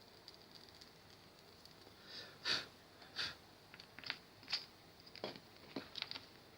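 A series of short, faint scrapes and clicks, about ten of them, the loudest about two and a half seconds in, typical of parts being handled during a TV backlight repair.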